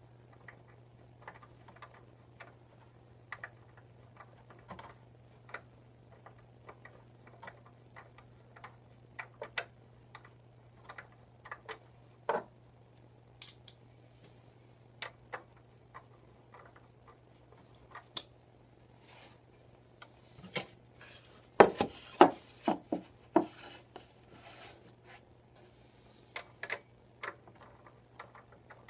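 Scattered clicks and knocks of hand work on a motorcycle's front wheel and brake calipers, with a burst of louder knocks about two-thirds of the way through, over a steady low hum.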